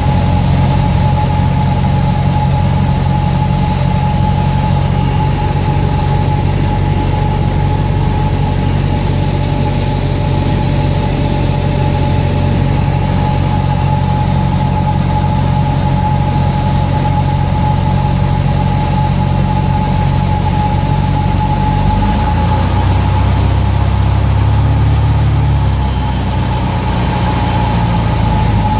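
A 1958 Cessna 172's six-cylinder Continental O-300 engine and propeller running steadily, heard inside the cabin in a spiral descent. The engine note shifts about 22 seconds in and again a few seconds later.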